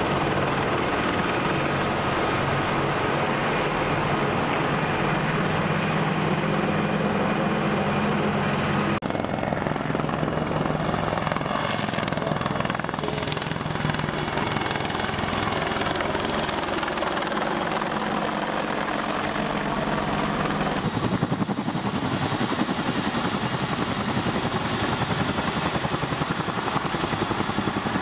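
Military helicopter flying past, mainly the AH-64 Apache attack helicopter: a steady turbine whine over rotor noise. The sound changes abruptly twice, about 9 and 21 seconds in, and from the second change a fast, regular rotor beat dominates.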